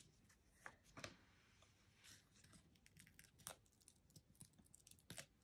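Near silence with faint, scattered clicks and light rustles of paper and card being handled as a die-cut goat on foam dimensionals is pressed onto a card.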